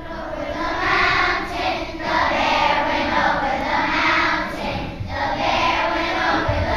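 A group of children singing together as a choir, in phrases with short breaks about two and five seconds in.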